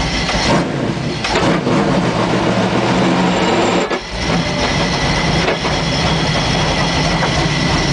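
Stock car's V8 engine running at low revs, heard from inside the cabin as the car rolls through the pit lane. The note is steady, with a short dip about four seconds in.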